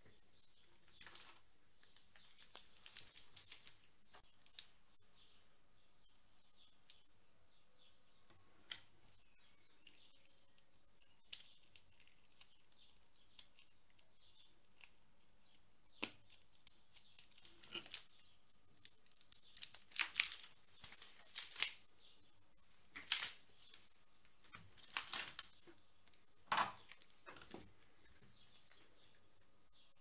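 Scattered sharp clicks and short scratchy crackles of hands and tools working on a mechanical keyboard, coming more thickly in the second half.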